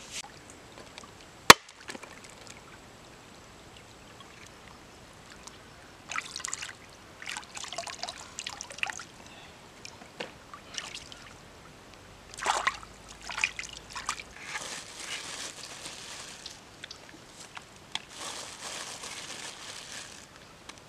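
A single sharp click about a second and a half in, then hands splashing and dipping in shallow water in short spells, with trickling and dripping between them.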